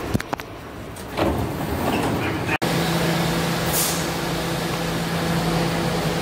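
Sharp clicks and a rising rumble, then, after a cut, a New York City subway B train standing at the platform with a steady hum. A brief high hiss comes about four seconds in.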